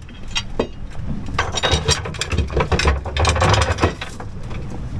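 Heavy stainless-steel anchor chain rattling and clinking as it is fed by hand into the anchor locker: a run of irregular metal clinks that thins out near the end.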